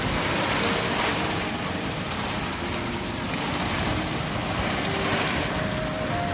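Heavy rain and gusting wind of a typhoon-driven storm, a steady hiss that swells and eases, with faint background music.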